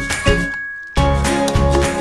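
Background music with a regular beat and bright tinkling notes; it cuts out briefly and comes back about a second in with a heavier bass beat.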